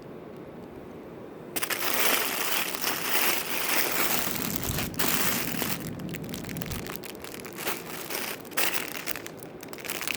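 Packaging crinkling and rustling as jewelry is handled and pulled from a box, starting about a second and a half in and going on with uneven swells.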